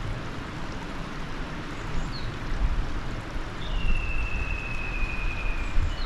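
Clear mountain river rushing steadily over gravel shallows, with low rumbling in the second half. About two-thirds of the way in, a bird gives one long, slightly falling whistle, after a couple of short chirps.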